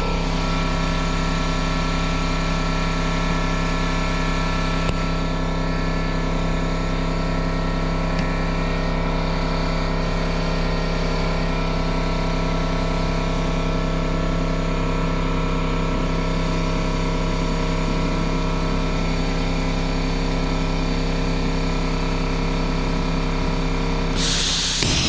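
A machine runs with a steady drone of many fixed tones. About a second before the end, a loud hiss of rushing air starts over it.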